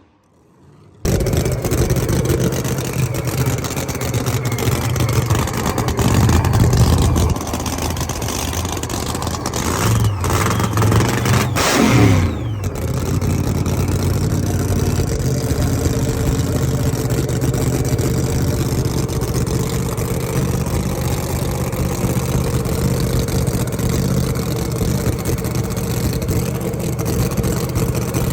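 Engine running loud and steady, starting after a short silence about a second in, with the revs rising around 6 seconds and again around 10 to 12 seconds in.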